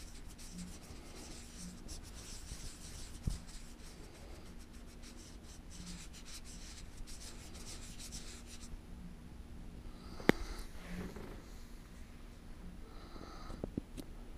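Microfibre cloth wiping over the GoPro's lens and housing, a soft scratchy rubbing for the first eight or nine seconds. A single sharp click follows about ten seconds in, with a few light knocks near the end.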